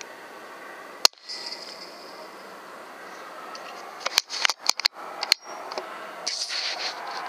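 FX Impact PCP air rifle firing once about a second in, a single sharp crack. About three seconds later comes a quick run of sharp clicks, over a steady low hiss.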